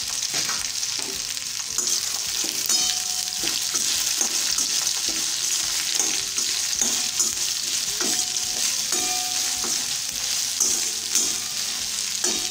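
Cut okra sizzling in hot oil in a stainless steel kadai: a steady frying hiss, broken by frequent clicks and scrapes of a steel spatula against the pan as it is stirred.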